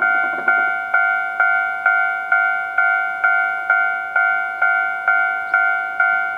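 Japanese railway level-crossing warning bell ringing, a steady two-tone ding about twice a second, each strike fading before the next. This is the alarm that signals an approaching train.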